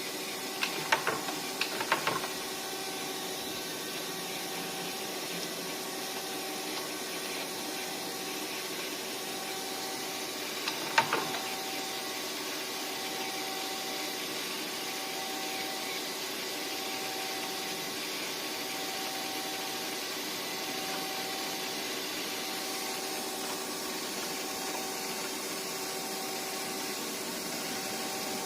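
Murata MW100 twin-spindle CNC lathe running: a steady machine hum with a higher tone that pulses on and off about every second and a half. A few sharp clicks come near the start, and one more about eleven seconds in.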